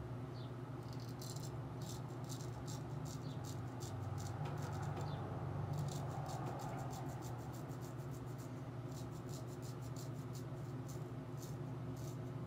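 Straight razor scraping through lathered stubble on the upper lip: a quick, dry crackle of short strokes in several bunches, over a steady low hum.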